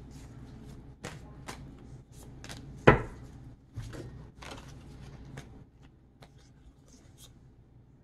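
Tarot cards being shuffled by hand, a run of sharp card slaps about twice a second, with one louder thump about three seconds in. The slaps thin out and grow fainter over the last few seconds.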